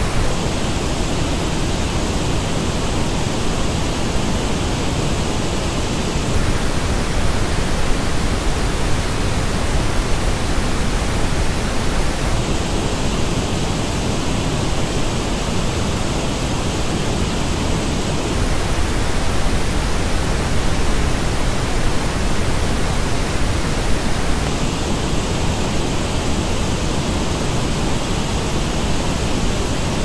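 Pink noise test signal switching about every six seconds between the flat original reference and the same noise as reproduced by HIFIMAN Edition XS planar magnetic headphones. The headphone version is coloured: a dip in the upper midrange, then a narrow notch and a bright peak in the high treble.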